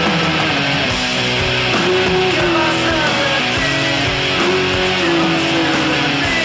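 Guitar-led music playing steadily: the break bumper music of a TV wrestling broadcast.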